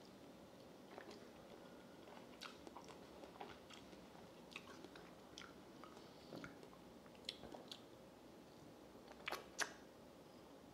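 Faint wet mouth sounds of a man chewing a soft slice of Harum Manis mango: scattered small smacks and clicks, with two louder smacks close together near the end.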